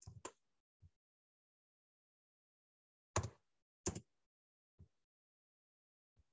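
A few isolated computer keyboard key presses, short sharp taps with two louder ones about three and four seconds in and fainter ones around them, set in otherwise dead silence.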